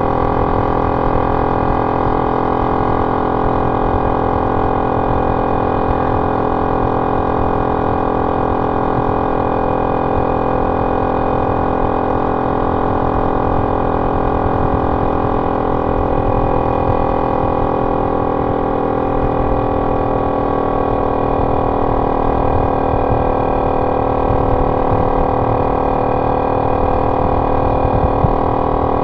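Honda C70's small single-cylinder four-stroke engine running at a steady cruising speed through a banana-style aftermarket exhaust, giving one continuous droning note. The pitch dips slightly about two-thirds of the way through and then levels off again.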